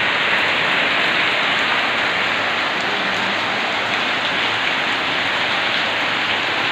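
Heavy rain falling steadily onto a flooded street, a dense, even hiss.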